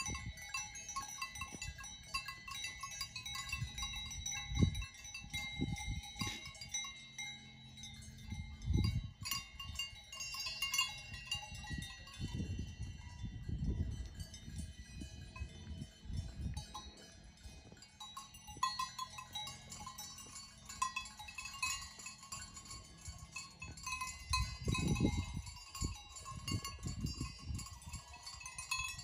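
Bells worn by grazing Alpine livestock clanking and ringing irregularly as the animals move, with several overlapping bell tones. Low rumbling thumps come and go underneath.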